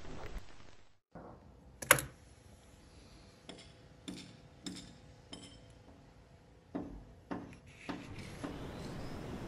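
A sparse series of light clicks and clinks, with one sharper click about two seconds in, after a short near-silent gap.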